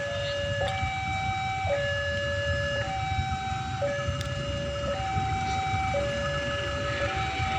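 An electronic two-tone warning alarm alternating between a low and a higher note, each held about a second, over a low rumble.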